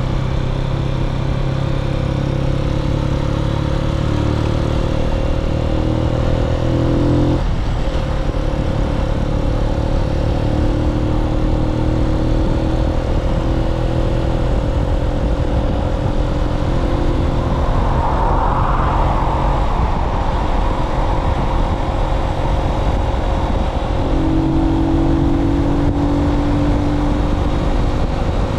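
Keeway K-Light 125 motorcycle engine running under way as the bike accelerates, with steady wind rush over the microphone. The engine note breaks and drops about seven seconds in at a gear change, then pulls on.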